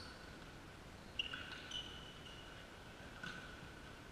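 Volleyball players' shoes squeaking faintly on a sports hall floor during a rally, with a sharp knock about a second in.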